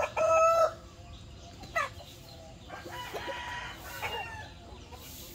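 A rooster crowing, its drawn-out final note ending just under a second in, followed by softer scattered clucks and calls from the flock.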